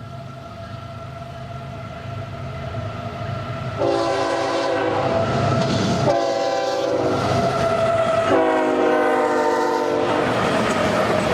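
Approaching train growing louder, then sounding its multi-tone air horn in three blasts, two long and a slightly shorter third. The train then passes close by with wheels clattering over the rail joints.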